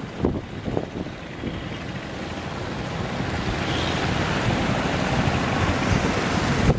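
Surf breaking at a river mouth in strong wind, with wind buffeting the microphone; a steady rush of waves that swells gradually louder.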